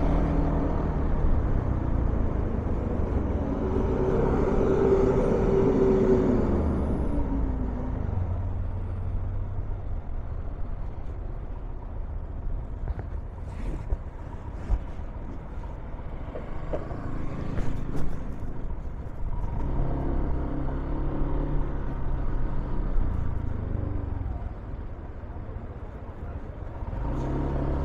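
Street traffic: motor vehicle engines running and passing by, louder for the first several seconds and again near the end.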